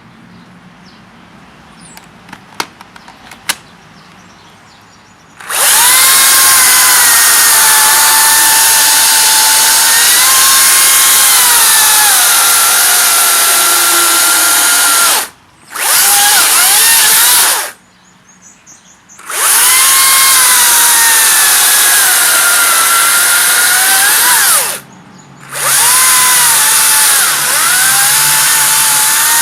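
Makita cordless battery chainsaw cutting wood, its motor whine sagging in pitch under load and recovering. It starts after a few light clicks about five seconds in and is stopped and restarted three times.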